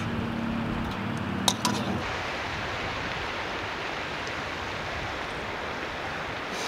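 Steady rushing noise of river water. For the first two seconds a low hum lies under it, with two sharp clicks about a second and a half in; the hum then stops suddenly.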